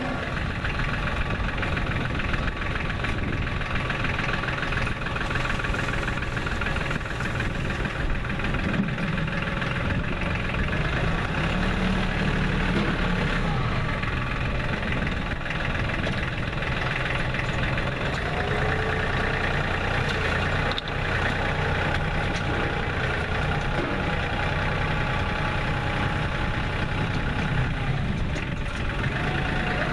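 Compact tractor's engine running steadily as the tractor drives with its front-end loader, with a few brief shifts in pitch.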